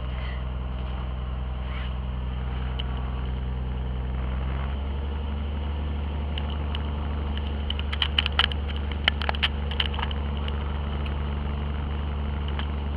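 Small high-wing airplane's propeller engine running steadily, heard inside the cabin; its note shifts about five seconds in. A quick cluster of sharp clicks and rattles comes around eight to ten seconds in.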